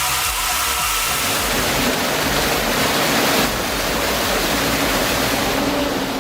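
Steady, loud rushing noise.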